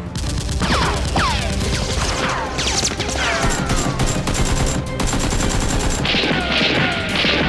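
Sustained rapid automatic gunfire, the kind of gunshot sound effects laid over a staged Nerf battle. Dense volleys run throughout, with several falling whistle-like tones among the shots.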